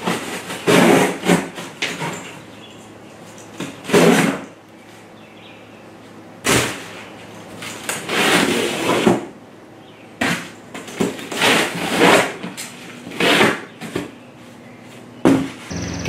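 Corrugated cardboard box being cut down and handled with a dull knife: a series of short scraping, tearing bursts, with a sharp knock about six and a half seconds in and a longer cut around eight seconds in.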